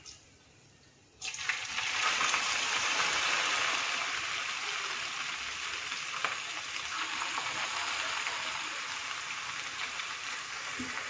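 Boiled noodles deep-frying in hot oil in a steel kadai: a sizzle that starts suddenly about a second in as the batch goes into the oil, then carries on steadily, easing a little.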